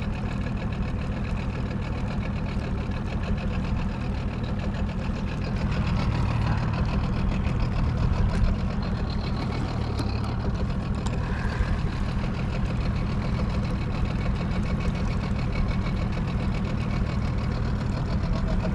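Boat motor running steadily at low trolling speed, a constant low engine drone.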